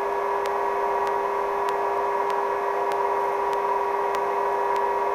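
Steady whine and hiss of a Sikorsky helicopter's turbine engine and rotor, heard over the radio intercom, holding one even pitch with faint regular ticks.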